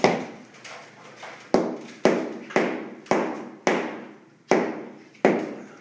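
A hardwood floorboard being struck repeatedly with a hammer or mallet to tap it into place. There is one sharp knock, then after a pause seven more about half a second apart, each ringing briefly in the wood floor.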